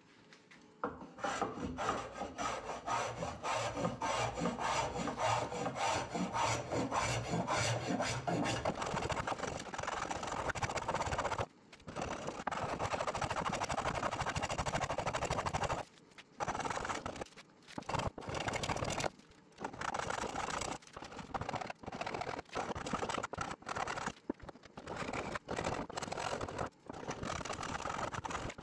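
A hand tool working the edge of an ash board in quick repeated strokes, a rasping scrape of steel cutting wood. It starts about a second in and stops for short pauses now and then in the second half.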